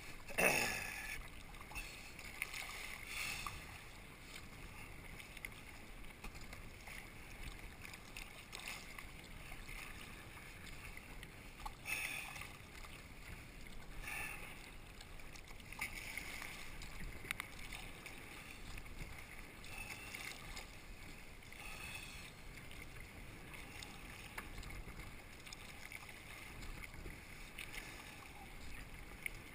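Kayak paddle strokes dipping into shallow sea water, with repeated splashes every few seconds over steady water washing along the hull.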